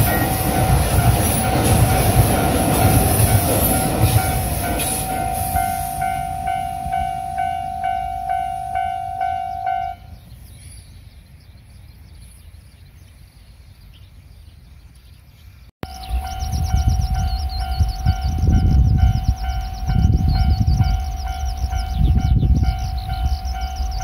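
A JR Shikoku 8000 series limited-express electric train rushes past over a level crossing while the crossing bell dings steadily. The train noise fades by about five seconds in, and the bell keeps ringing until it stops about ten seconds in. After a few quieter seconds, the level-crossing bell starts ringing again at about sixteen seconds, with a low rumble swelling and fading beneath it.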